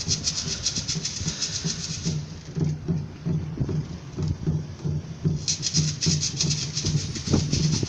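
Batucada drum group playing: low bass drums keep a steady beat about twice a second under a fast shaker rhythm. The shakers drop out for about three seconds partway through, then come back in.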